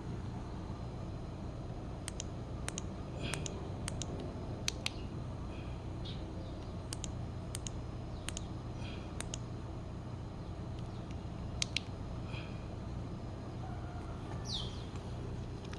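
Sharp, irregular clicks, a dozen or so, as the buttons on a Benelli TRK502 are pressed to step through the TFT dashboard's settings menu. Under them runs a steady low hum, with a few faint high chirps, one of them a falling whistle near the end.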